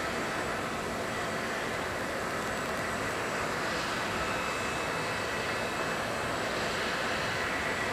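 Steady jet aircraft noise from the parked airliner: a constant rush with a thin high whine held at one pitch.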